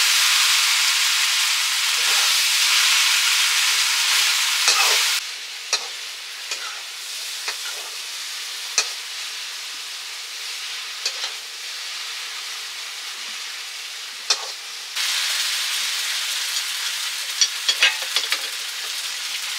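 Food sizzling in a hot pan as it is stirred, with sharp clinks of the stirring utensil against the pan. The sizzle drops away abruptly about five seconds in, leaving a quieter hiss and scattered clinks, and comes back loud about fifteen seconds in.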